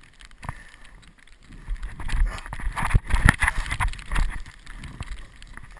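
Snow scraping and crunching under a snowboarder, with irregular knocks and rumble on the head-mounted camera, loudest in the middle.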